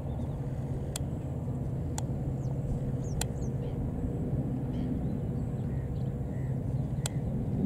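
EMD diesel-electric locomotive running under power as it approaches, a steady low engine drone that grows slightly louder. A few sharp clicks and faint bird calls sound over it.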